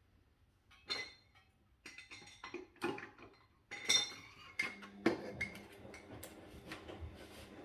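Metal engine parts and hand tools clinking and clanking as an engine's bottom end is being dismantled: a string of sharp knocks, some of them ringing, loudest around the middle.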